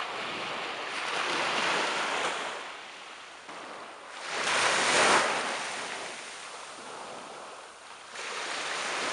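Small waves breaking and washing up a sandy beach, the surf swelling and falling away in several washes, loudest about four to five seconds in.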